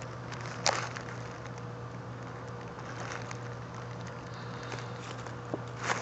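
Short puffs of breath blown through a rubber vacuum hose to push cigarette smoke into the intake, one about a second in and another near the end, over a steady low hum.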